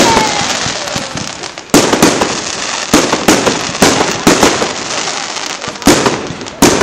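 Fireworks: aerial shells bursting in the sky, a loud bang every second or so, each trailing off in crackle and echo.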